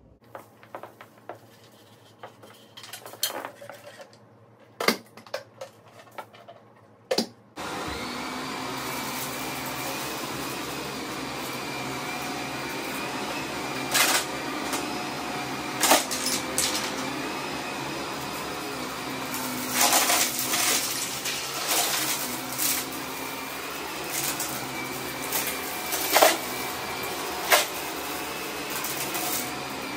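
A few scattered clicks and crinkles, then a vacuum cleaner switches on about a quarter of the way in and runs steadily on the carpet. Sharp cracks and crunches cut through it as confetti is sucked up.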